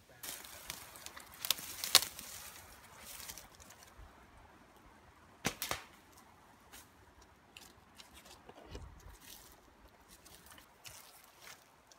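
Rustling through forest undergrowth with several sharp snaps and cracks, the loudest about two seconds in and another about five and a half seconds in, followed by lighter clicks.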